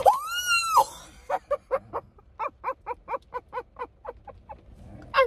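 A woman's high-pitched shriek, rising and falling within about a second, then a long run of breathy laughter at about five pulses a second that trails off near the end.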